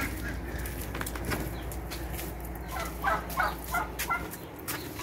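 Poultry calling, a quick run of about five short calls around three to four seconds in, over a low rumble that stops near the end and a few handling knocks.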